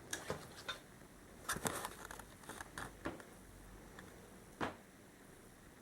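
Plastic toy figure and zip line being handled: faint, irregular plastic clicks and taps, with a sharper click at the very end.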